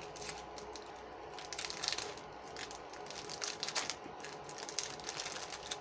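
Clear plastic packaging bag crinkling and crackling irregularly as it is handled around sheets of cardstock.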